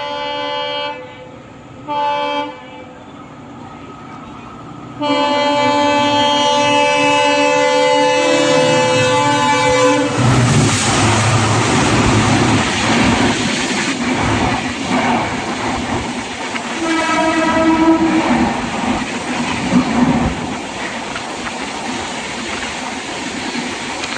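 WDP4D diesel locomotive's multi-tone horn: a blast ending about a second in, a short toot, then a long blast from about five seconds in. From about ten seconds the train passes close by, its engine humming and wheels clacking over rail joints, with a brief fainter horn partway through.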